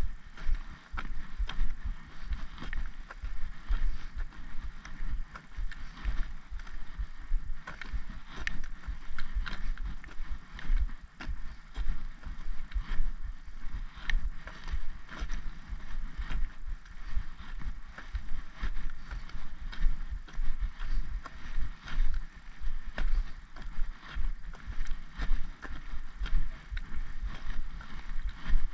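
Walking sticks tapping on a tarmac lane in step with footsteps, a regular click about twice a second over low thuds from the walker's stride.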